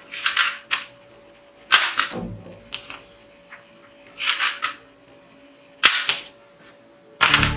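Toy gun fired about six times: short, sharp pops at uneven intervals.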